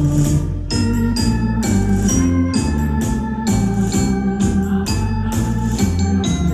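Electronic keyboard playing a tango dance tune: held chords over a bass line with a steady drum-machine beat.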